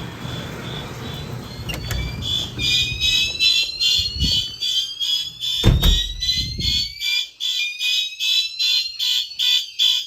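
Several fire alarm horns sounding together: a rapidly pulsing high horn tone overlaid with repeated slow rising whoop sweeps. A door-like thump about six seconds in, after which the low outdoor noise drops away and only the alarms remain.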